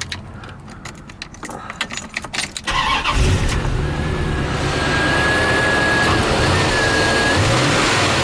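Chevrolet Corvette C4's 5.7-litre V8 cranking over for nearly three seconds, then catching about three seconds in and settling into a steady idle. This is a first start after the car has sat for years on old fuel.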